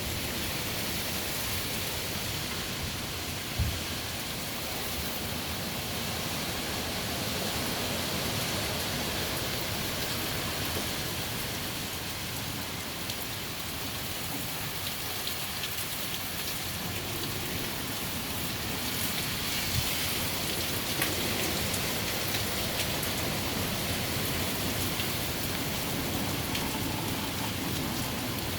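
Steady rain pouring down, with a few sharp ticks of drops hitting something.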